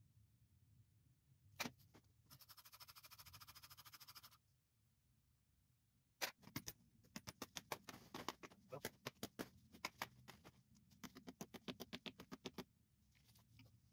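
A ratchet wrench ticking in a fast, even run for about two seconds, then clicking in short bursts as it is worked back and forth, with a single click just before.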